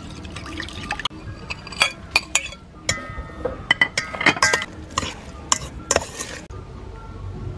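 Metal spoon clinking and scraping against a bowl while stirring dressing and tossing a salad: an irregular run of sharp clinks, a few ringing briefly, that stops about six and a half seconds in.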